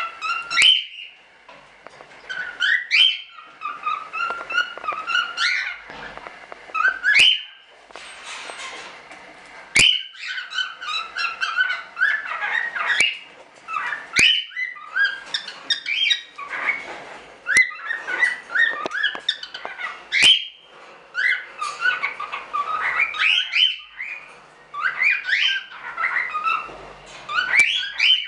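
Cockatiel whistling and chirping in warbled phrases full of sharp rising whistle notes, coming in bouts a few seconds long with short pauses between.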